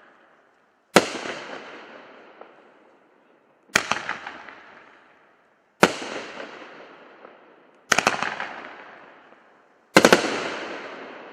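Winda 'Mother of All Bombs' firework going off: five loud bangs about two seconds apart, each trailing off over a second or two. The last two bangs come as quick clusters of several reports.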